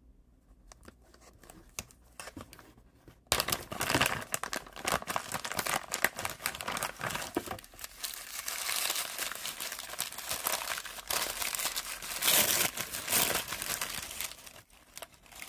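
Packaging being crinkled and torn by hand as a part is unwrapped, starting suddenly about three seconds in after a quiet stretch, with louder handfuls of crackling near the start and again toward the end.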